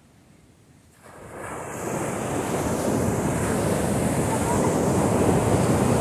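Ocean surf breaking and washing up the beach. It builds from near quiet about a second in to a steady, loud rush of water.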